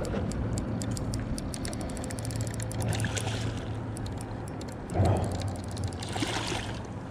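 Water splashing as a hooked striped bass thrashes at the surface beside the boat while it is being netted, with a louder splash about five seconds in. A steady low hum runs underneath, and a rapid run of light clicks sounds over the first few seconds.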